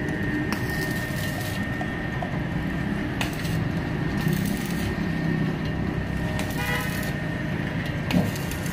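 Steady road-traffic rumble with scattered light clicks and knocks, and a vehicle horn sounding briefly about seven seconds in.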